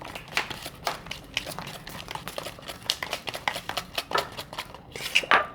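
A small spoon stirring glue and detergent solution in a small dish to make slime: irregular clicks and scrapes of the spoon against the dish, a few a second, loudest near the end.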